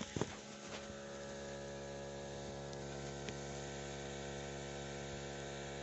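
Steady electrical hum from solar water-pumping equipment, a stack of even, unchanging tones, with a few sharp clicks in the first half second.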